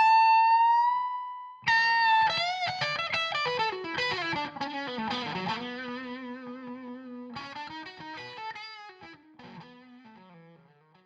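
Electric guitar on a Suhr SSV+ bridge pickup playing a blues lead with a slightly distorted tone. A held high note is bent upward, then a run of bent notes slides down to a long low note with vibrato, and a final phrase dies away near the end.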